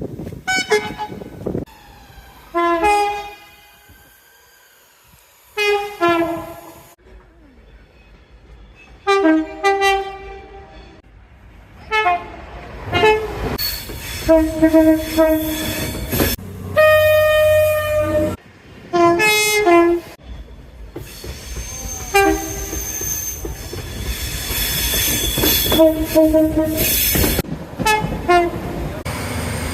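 Train horns sounding a dozen or so short blasts, many of them two-tone, with a moving train's rumble and wheel noise underneath that grows louder over the last third.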